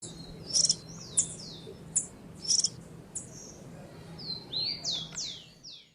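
Domestic canary singing: sharp, high chip notes every half-second or so, then a quick run of swooping whistled notes near the end.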